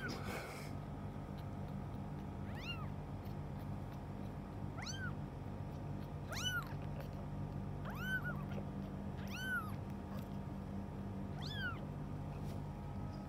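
Kitten mewing six times, high-pitched cries about every two seconds, each rising and then falling in pitch.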